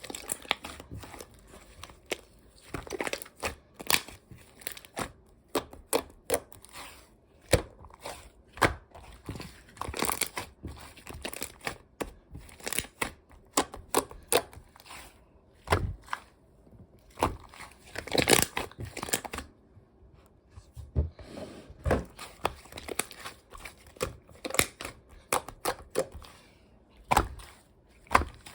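Slime being mixed and kneaded by hand: irregular sticky clicks, pops and crackly squishes, with short pauses between handfuls.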